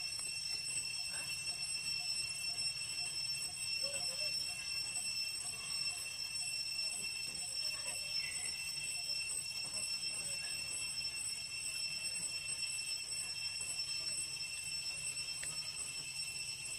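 A steady high-pitched whine with fainter overtones above it, over a low background hum.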